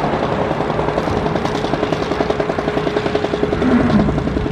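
Small remote-controlled construction machine running, a rapid, even pulsing over a steady hum.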